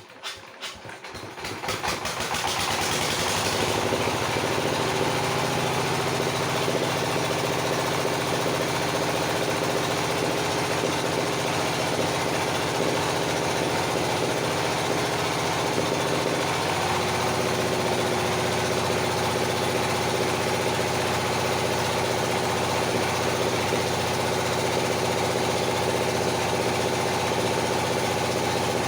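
Engine of a circular sawmill starting: quick firing pulses that pick up speed and settle into steady running within about two seconds. Its tone shifts slightly about halfway through.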